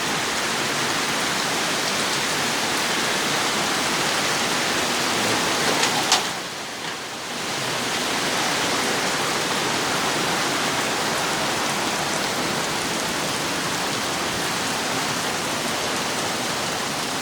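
Heavy downpour: a steady, loud hiss of rain. A sharp click about six seconds in, after which the rain sound briefly drops for a second or so before it returns.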